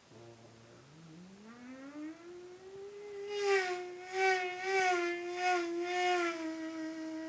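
Vocal imitation of Ninja sport motorcycles passing: a hummed engine note that climbs steadily in pitch like a bike accelerating, then swells and dips about five times in quick succession, one swell per passing bike, before settling on a held note.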